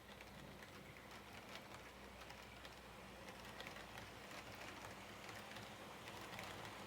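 HO-gauge model train running on its track, faint: a low steady motor hum under scattered light clicking from the wheels, getting slightly louder.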